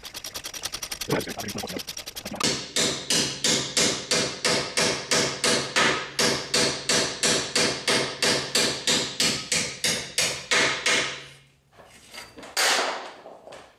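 A ratchet wrench clicks rapidly for about two seconds. Then a hammer strikes the steel steering knuckle of a Mk5 VW Jetta about three times a second for some nine seconds, each blow ringing metallically, as the knuckle is driven down to free the bottom of the strut from the hub. One more knock comes near the end.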